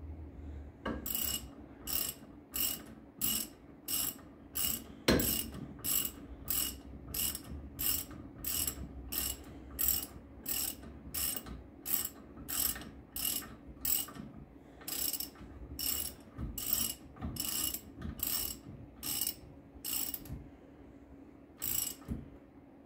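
A hand socket ratchet being worked back and forth, a short burst of pawl clicks on each return stroke, about one and a half strokes a second, while a bolt on a front brake caliper is tightened by hand. There is a single sharp knock about five seconds in, and the ratcheting stops near the end with one last stroke.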